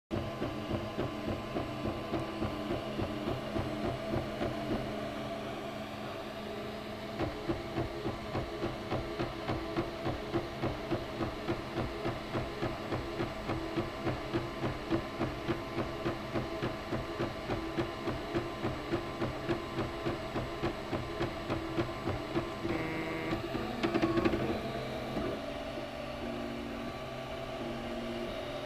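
MakerBot Replicator 3D printer printing. Its stepper motors whine at pitches that jump every second or so as the extruder head moves back and forth, over a steady pulsing of about two to three beats a second, with a short louder stretch about 24 seconds in.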